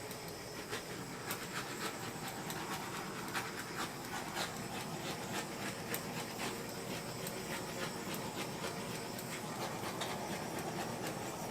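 Heat gun blowing steadily over freshly poured epoxy resin to pop the surface bubbles, a constant breathy rush with a faint motor hum.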